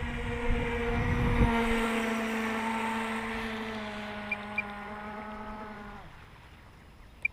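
Brushless electric motor of an RC speedboat (Rocket 3674, 3050 KV) whining at a steady pitch on slow cool-down laps. It fades and stops about six seconds in. A low rumble is heard in the first second and a half.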